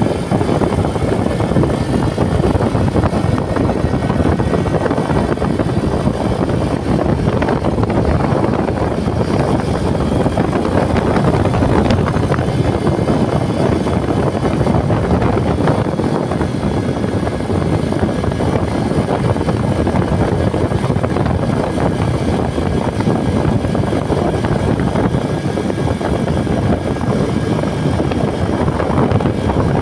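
Wind buffeting a phone microphone on a moving motorcycle, a steady loud rush with the motorcycle's engine and road noise mixed in.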